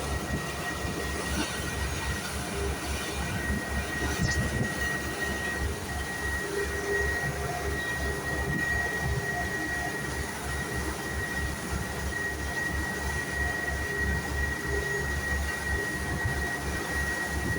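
Boat engine running steadily: a constant low rumble with a high, steady whine above it.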